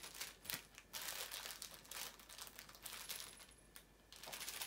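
Crinkling and rustling of a small clear plastic packet handled and opened by hand, in irregular crackles, with a brief lull near the end.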